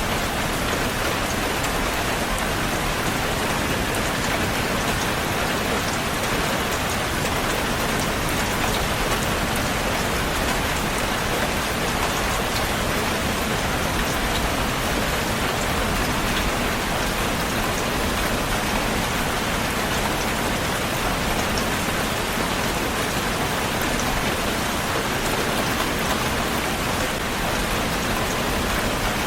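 Heavy rain falling steadily, a dense even hiss of drops on surfaces with fine scattered drop ticks and no change in strength.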